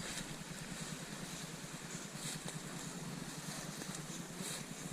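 Steady outdoor background rush, with a few faint brief rustles and no distinct event.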